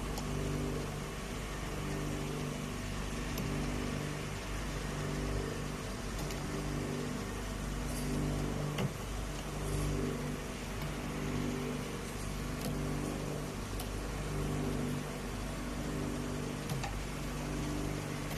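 Hot oil sizzling steadily in an electric batch fryer as sweet potato chips fry, over a low machine hum that swells and fades about every second and a half. A single sharp knock about nine seconds in.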